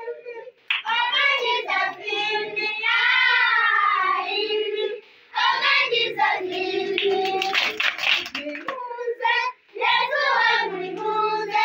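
Children singing, with high, wavering sung phrases broken by short pauses.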